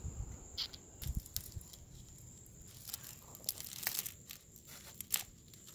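Cooked crab shell and legs being cracked and pulled apart by hand: a run of small irregular cracks and snaps, with aluminium foil crinkling under the crab.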